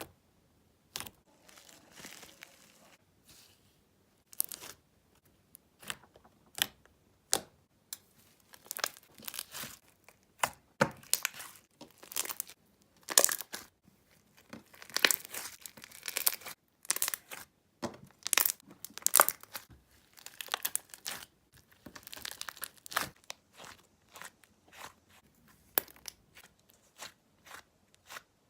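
Crunchy slime being squeezed and poked by hand: irregular crackles and pops, sparse at first and coming thicker and louder from about a third of the way in.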